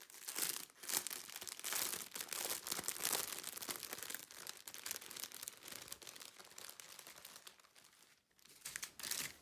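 Clear plastic bags crinkling and rustling as they are handled, with a short lull about eight seconds in.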